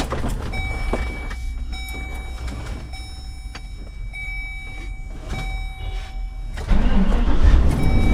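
Car's low engine rumble with an electronic warning chime repeating in pulses about a second long. The chime stops about six and a half seconds in, and the engine rumble then gets suddenly louder.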